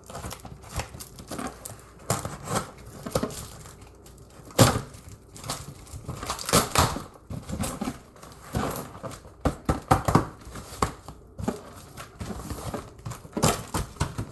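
Mail package being torn open by hand: irregular crinkling and ripping of the packaging, with the sharpest rips about four and a half and six and a half seconds in.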